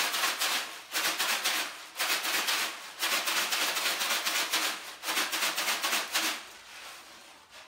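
Hand shakers rattled in bursts of one to two seconds with short pauses between, growing fainter near the end.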